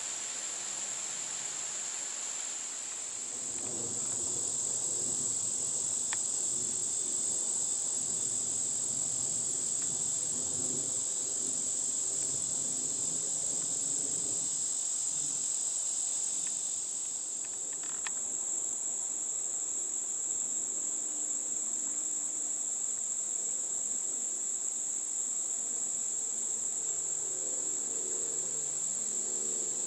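Crickets and other insects singing in a steady, high-pitched chorus that runs on without a break.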